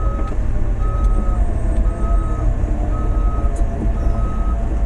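Large excavator's diesel engine running with a steady low rumble while its travel alarm beeps about once a second, each beep about half a second long, the sign that the machine is moving on its tracks.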